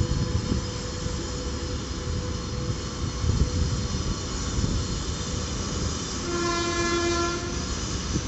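A train running through a station with a steady rumble of wheels and a faint steady whine in the first few seconds. Its horn gives one blast, about a second and a half long, starting about six seconds in.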